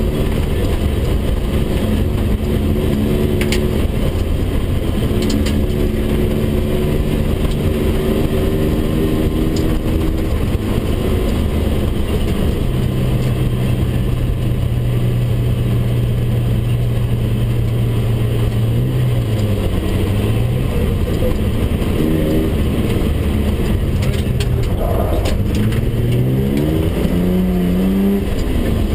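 BMW 320/6's straight-six engine under load, heard from inside the cabin over road and tyre rumble. The revs hold steady for several seconds in the middle, drop and pick up again briefly, then climb in rising sweeps near the end as the car accelerates.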